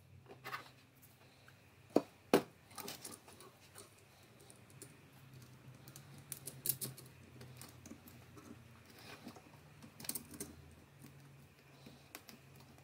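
Small metal and plastic parts of a dial indicator stand clicking and tapping as they are handled and fitted together by hand, in irregular clicks with two sharp ones about two seconds in.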